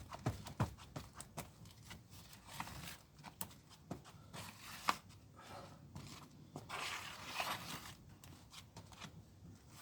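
Scattered clicks and short scrapes of metal-based body filler being mixed with its red hardener.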